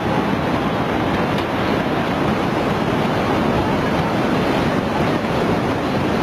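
Floodwater rushing: a steady, loud, unbroken wash of turbulent water.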